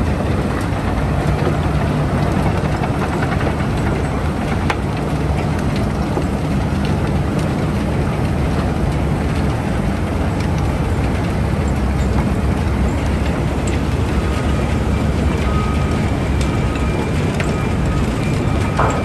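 Bucket wheel excavator running while digging: a steady, loud mechanical rumble with a low hum and scattered faint clanks, with a faint steady whine joining near the end.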